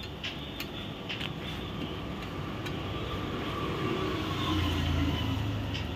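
Steady rumbling background noise, with a low hum that swells about four to five seconds in and a few light clicks in the first second and a half.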